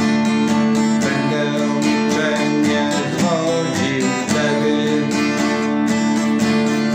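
Acoustic guitar strummed in a steady rhythm, ringing chords.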